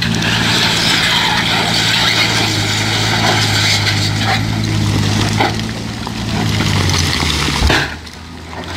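A heavy diesel engine runs steadily while a load of broken rock and earth slides out of a raised dump-truck tipper body with a continuous rushing hiss. Now and then a rock knocks against the pile. The rushing dies down near the end.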